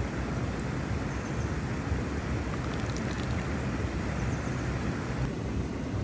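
Steady rushing of river water spilling over a small weir, a dense, even noise that thins slightly about five seconds in.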